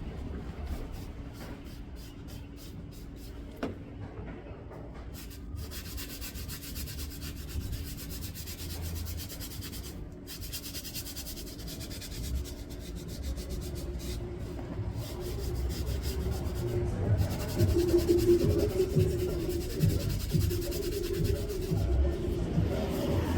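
Sandpaper rubbing on the bare metal of a motorcycle fuel tank, a continuous scratchy sanding that gets louder in the second half.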